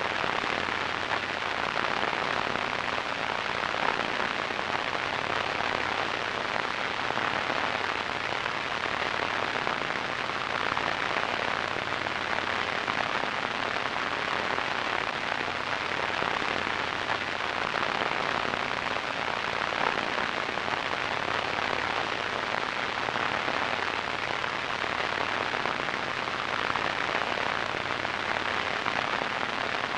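Radio static: a steady, even hiss with a fine crackling grain, strongest in the mid-to-upper range and dulled in the highest treble.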